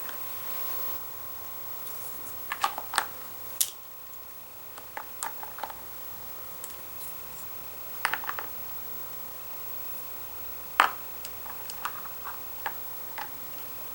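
Hard plastic toy playset parts being handled and snapped together, in scattered clusters of short sharp clicks and taps, with the loudest single click about two-thirds of the way in.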